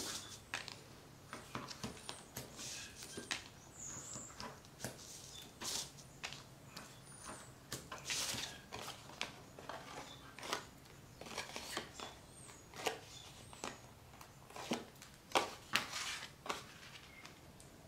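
Stiff cardstock rustling and tapping in short, scattered sounds as folded card layers are handled and pressed together, with double-sided tape being pulled off its roll.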